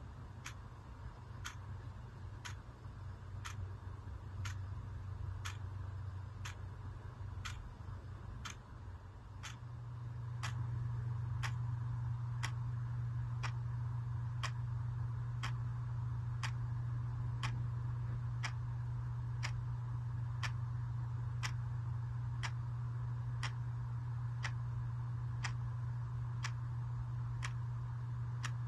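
A wall clock's second hand ticking steadily, about one sharp tick a second. Under it runs a steady low hum that gets louder about ten seconds in.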